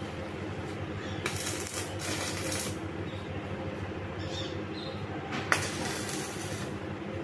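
Steady machine hum with two bursts of crackling hiss, each about a second and a half long; the second starts with a sharp snap, like an electric welding arc being struck.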